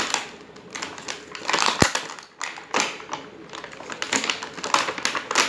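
Toy packaging being handled and opened by hand: irregular crackling and rustling strokes, with a short sharp knock just under two seconds in.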